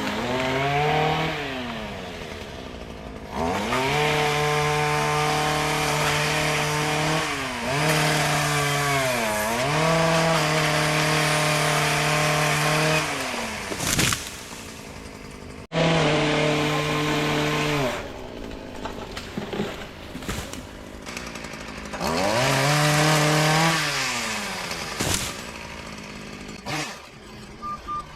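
Chainsaw cutting oak limbs. The engine is revved to full throttle and held for a few seconds at a time during each cut, then falls back toward idle between cuts. A couple of sharp knocks are heard along the way.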